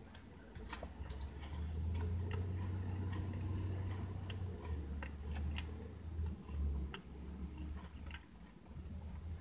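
Wet clicks and smacks of a mouth chewing soft frosted cupcake, scattered irregularly, over a low hum that swells about a second in and breaks off a few times near the middle.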